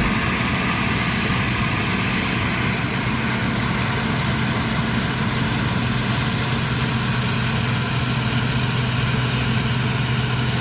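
A farm machine's diesel engine running steadily at an even speed, with a constant low hum.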